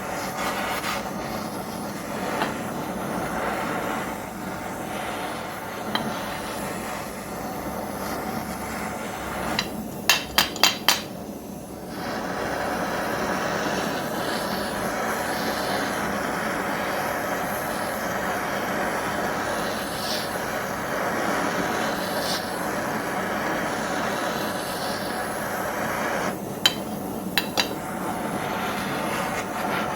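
Blowtorch flame running steadily, heating the engine case of a 50cc two-stroke to expand it and free a stuck crank seal and bearing. Sharp metal taps, about four in quick succession about ten seconds in and three more near the end, as the part is knocked at.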